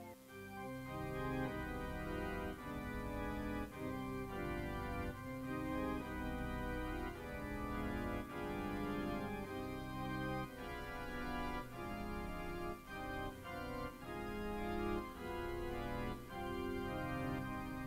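Background organ music, held chords changing about once a second.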